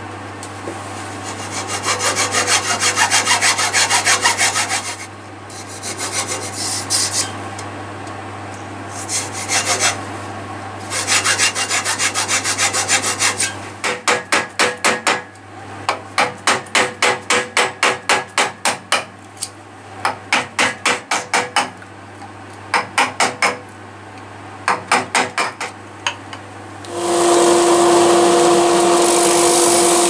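Hacksaw cutting into a wooden turning blank in several runs of rapid strokes for the first dozen seconds. Then a mallet tapping a chisel into the wood in quick series of light blows, about four a second. Near the end a handheld rotary tool starts up and runs with a steady whine against the wood.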